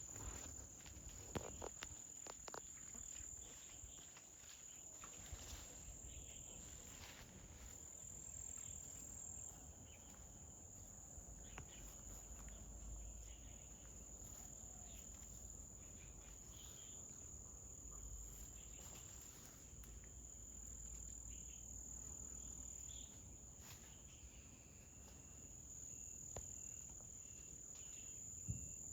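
Insects trilling steadily with a high, thin, continuous sound that swells and fades slightly, with a few soft clicks and knocks.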